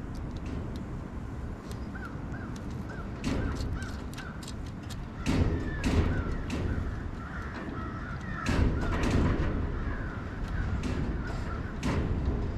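A bird calling in a quick series of short, repeated calls, with several sharp knocks and clanks from handling metal parts while working on an ATV winch.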